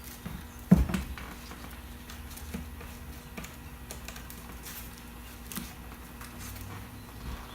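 Workbench handling sounds while gluing up a plywood seat panel: a sharp knock about a second in, then scattered light clicks and taps.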